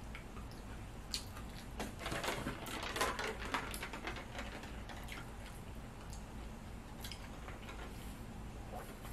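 A person chewing food, with wet mouth smacks and small clicks, busiest about two to four seconds in.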